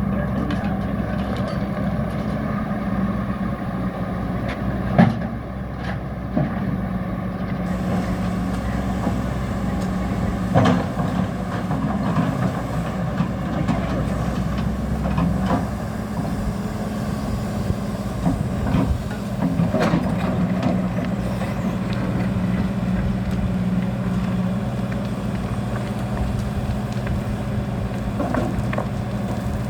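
Tata Hitachi EX200 excavator's diesel engine running steadily under work. Sharp knocks and clanks come every few seconds as the bucket and boom work the soil.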